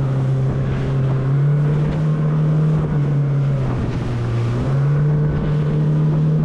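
Outboard motor of a small centre-console boat running under way, a loud, steady low drone, with wind rushing over the microphone.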